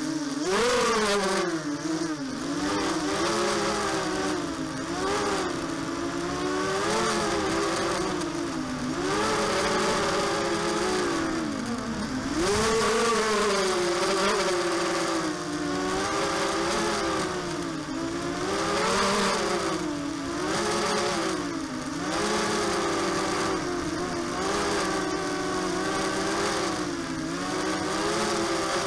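The four brushless DYS BE1806 motors and propellers of a ZMR250 mini quadcopter whining, heard through the camera mounted on the quad. The pitch keeps swooping up and down every second or two as the throttle changes in flight.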